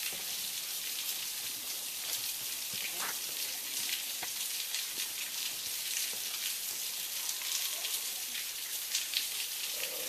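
Waterfall spilling over a sandstone recess cave, its falling water making a steady high hiss.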